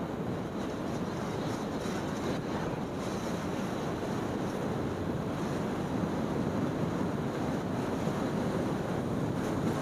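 Steady wind rush over the microphone, with road noise from a scooter riding at speed, growing slightly louder in the second half.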